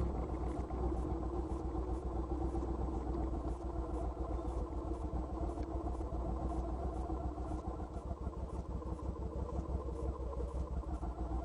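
Motorcycle engine idling steadily with a low rumble.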